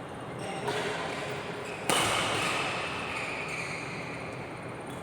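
A single sharp impact about two seconds in, ringing out and fading over a second or so, with a fainter knock before it.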